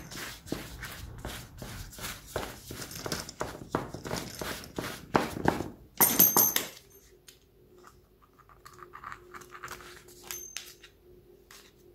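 Hands pressing and patting pastry dough into a metal tart pan: quick rubbing and tapping strokes for about six seconds. Then a short louder clatter with a metallic ring, after which it goes quieter with faint scraping as a pastry wheel trims the dough along the pan's rim, over a faint steady hum.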